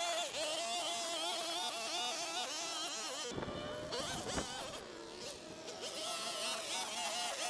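Small two-stroke engine of a handheld gas yard tool running, its pitch wavering with the throttle. About three seconds in it revs harder, the pitch sweeping up and down.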